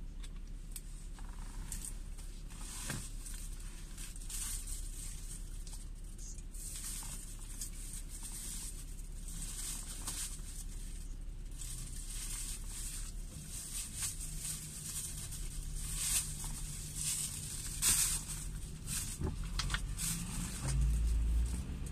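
Rain pattering on a car's roof and windscreen, heard from inside the car, as a hiss full of small irregular ticks over a low steady engine hum. Near the end the low engine sound grows as the car pulls forward.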